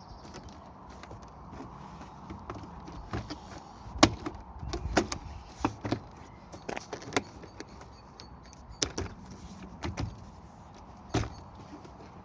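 Irregular sharp clicks and knocks of plastic car-door interior trim being handled and fitted, the loudest about four seconds in.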